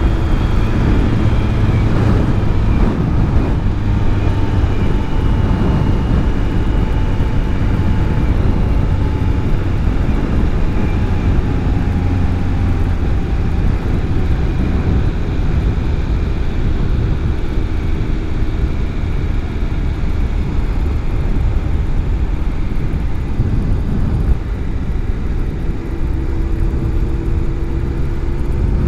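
Motorcycle being ridden at speed: a steady, loud rush of wind on the microphone over a faint engine note that drifts slowly up and down in pitch.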